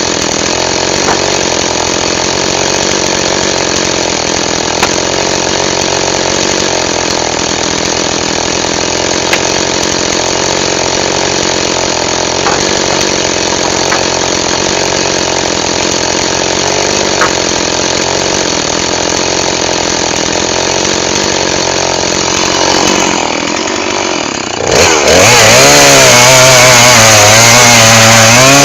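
A two-stroke chainsaw runs steadily, with a few faint ticks. Near the end it opens up and runs much louder, its pitch wavering as if under load.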